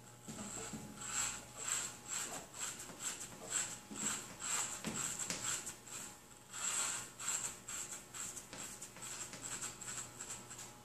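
Corded electric hair clippers running with a steady buzz, pushed through hair in quick repeated strokes.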